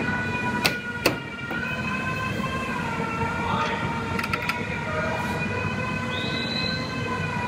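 Sharp plastic clicks as a Dodge Ram tail light is handled and its wiring plug is snapped on: two about a second in, then a quick cluster in the middle. They sit over a steady background drone of several held, whining tones.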